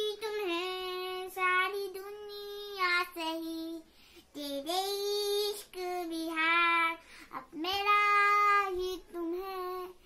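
A young girl singing alone, without accompaniment, in short phrases of held notes with brief breaks between them.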